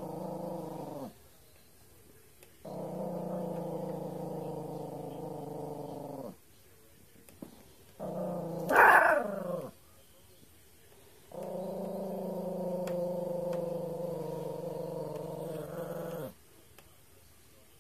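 A 3.8-pound Yorkshire terrier growling in long, steady growls a few seconds each, broken by pauses; about nine seconds in, a short, louder snarl that rises and falls in pitch. It is food aggression: the dog is guarding a piece of chicken.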